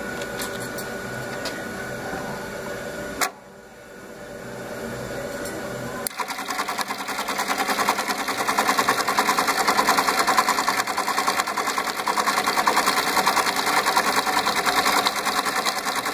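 Juki LK-1900B computerized bartacking machine. A steady hum, then a sharp click about three seconds in, then from about six seconds in the machine stitching a rope tack through braided rope at a rapid, even beat, slowed to 600 rpm for the rope.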